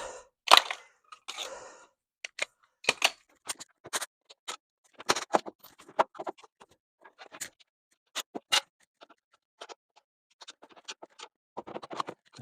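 Irregular clicks, taps and short scrapes of hand tools and metal parts being handled during a gas tank installation.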